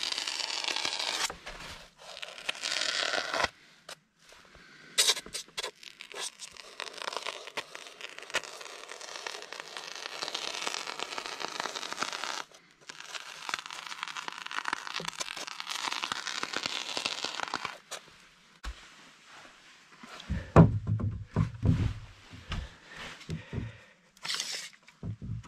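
Foam gun dispensing expanding insulation foam into a gap: hissing, crackling spurts with short breaks, stopping about two-thirds through. Then a cluster of knocks and thumps near the end.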